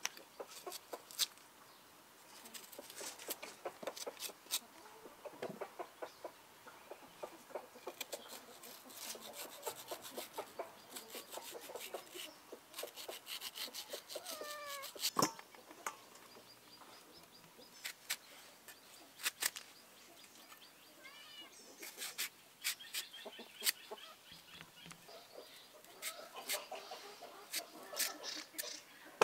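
Chickens clucking, with short falling calls now and then, over many irregular sharp clicks and knocks.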